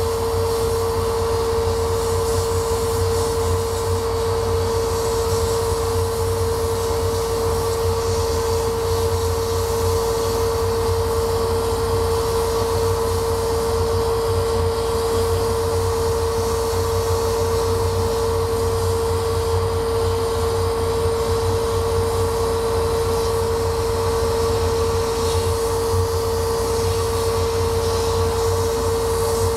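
Laser cutter running while it cuts a wooden sheet: a steady mechanical drone with one strong, constant mid-pitched hum over a low rumble.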